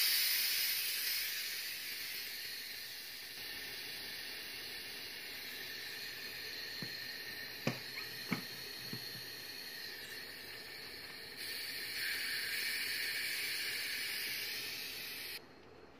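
Compressed air from a converted fridge compressor hissing out of the brass end fitting of a refrigeration charging hose. It starts suddenly, slowly eases off, surges louder again about twelve seconds in, then cuts off suddenly near the end. A couple of small clicks sound midway.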